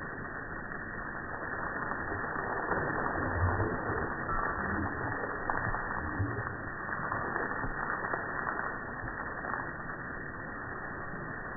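Water from a garden hose spraying and splashing on a dog and the lawn, slowed down so that it sounds low and muffled, with a few heavier low bumps in the middle.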